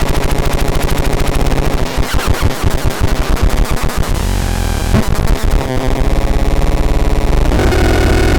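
VAPETRON modular 889C synthesizer putting out a harsh, noisy electronic tone in fast, even pulses. Steadier pitched tones come in near the end.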